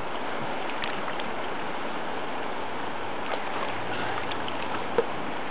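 Steady rushing of a fast river current around a small boat, with a few light clicks and one sharp click about five seconds in.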